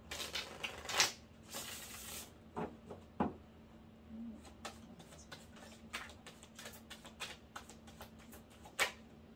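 Tarot cards being shuffled and handled: a short rushing shuffle about one and a half to two seconds in, then scattered light clicks and taps as cards are drawn and laid down, over a faint steady hum.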